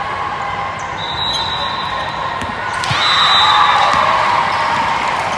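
Busy indoor volleyball hall: crowd noise and shouting with sharp ball hits, and two short high referee whistle blasts, about one and three seconds in. The crowd noise grows louder with the second whistle as the rally ends.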